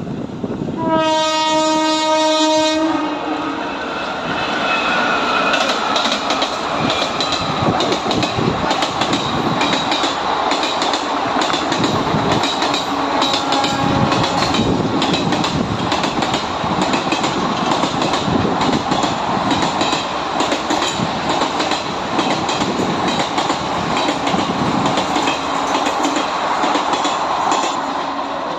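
A WAP-4 electric locomotive sounds one horn blast of about two seconds near the start. The express then runs through at speed, its wheels clattering steadily over the rail joints, and fades near the end.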